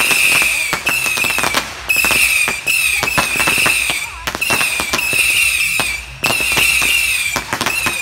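Consumer fireworks going off in quick succession: a dense run of sharp pops and crackles over a steady high whine that keeps breaking off and starting again about once a second.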